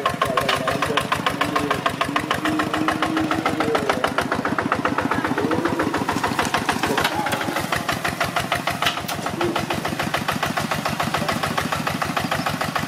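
Kubota two-wheel walking tractor's single-cylinder diesel engine running under load as it pulls a plow through the soil, with a fast, even beat of firing pulses.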